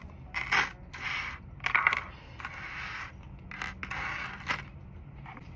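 Strands of small beads being handled and moved across a checkout counter: a run of short rattling, scraping clatters, with a low steady hum underneath.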